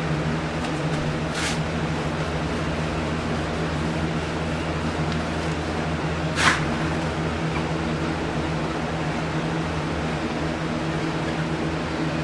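Steady hum of an electric fan running, with a short hiss about six seconds in and a fainter one near the start.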